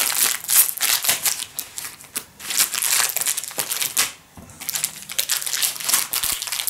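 Crinkling and crushing of a snack cake's plastic wrapper as it is handled, squeezed and worked at to tear it open, in irregular crackly bursts with a brief pause a little after four seconds in.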